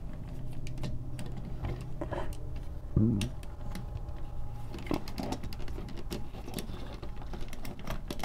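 Maketoys Howling Meteor transforming-robot figure being handled and posed: its ratcheting joints click and the plastic parts tap in an irregular run of light clicks, with a short louder sound about three seconds in. The ratchet joint is stiff and tight.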